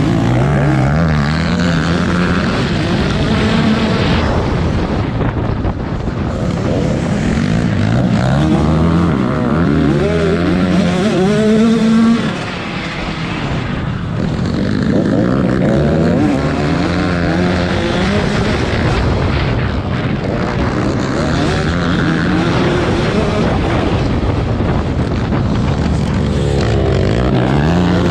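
Several dirt bikes racing, their engines revving up and down in overlapping rising and falling tones as riders accelerate and back off, with a brief dip in loudness about twelve seconds in.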